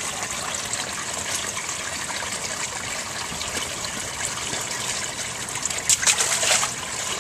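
Shallow stream running over rocks: a steady trickling rush of water, with a short louder burst of noise about six seconds in.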